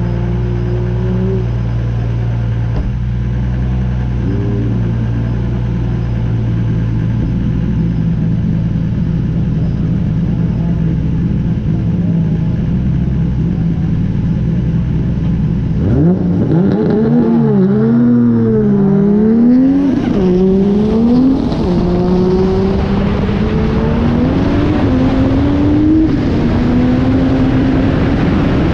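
Drift car's engine idling at the start line with a couple of short blips of the throttle, then revving hard about halfway through, the revs swinging up and down as it launches. It then pulls away, the revs climbing and dropping back several times as it shifts up through the gears.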